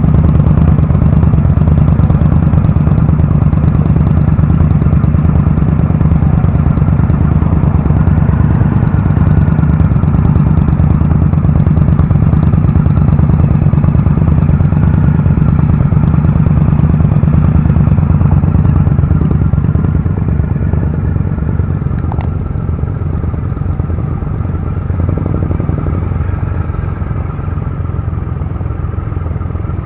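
Triumph Rocket 3 Classic's 2.3-litre three-cylinder engine running steadily at low revs while the bike crawls in slow traffic. It gets a little quieter about twenty seconds in.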